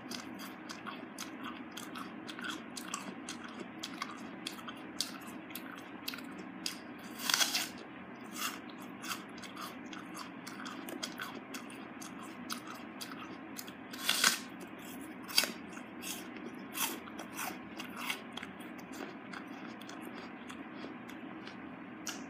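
Crunching bites into a raw apple and chewing close to the microphone, a steady run of crisp, wet crunches. The loudest bites come about seven and fourteen seconds in.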